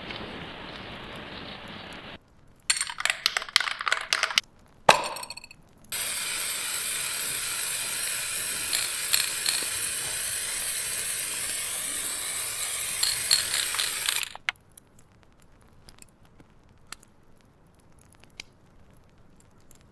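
An aerosol spray can shaken, its mixing ball clattering, then sprayed in one long, even hiss of about eight seconds that stops suddenly. A few faint ticks follow.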